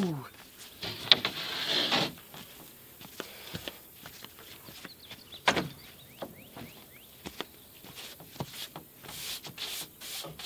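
Scattered knocks and clicks of framing lumber being handled and fitted, with a sharp knock and a short scrape about a second in, another knock past the middle, and a cluster of light clicks near the end.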